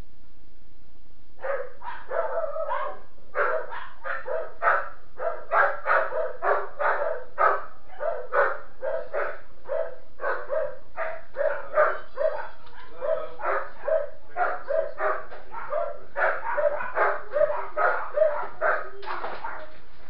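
A dog barking over and over, about two barks a second, starting a second or so in.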